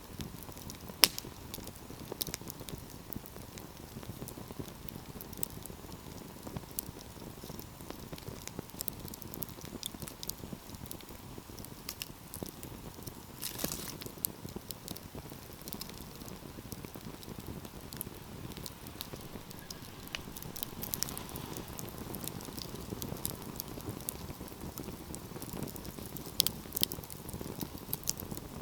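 Wood fire crackling: irregular snaps and pops over a low, steady rush of burning. There is one sharp, loud pop about a second in and a brief burst of crackling about halfway through.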